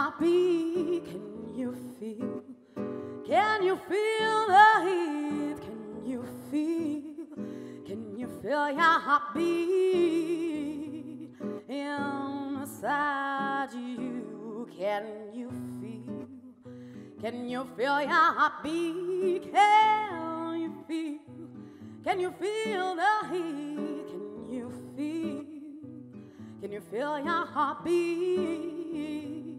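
A woman singing in long phrases with vibrato, live, over fingerpicked acoustic guitar.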